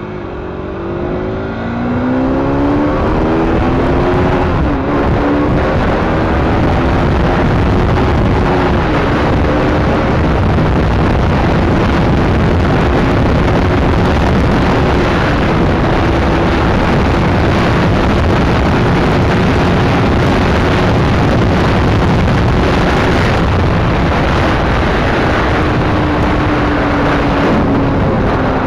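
Aprilia GPR150 motorcycle's single-cylinder engine accelerating hard, its pitch climbing in steps through the gears for the first few seconds, then held steady at high revs at top speed. Heavy wind rush on the microphone runs under the engine throughout.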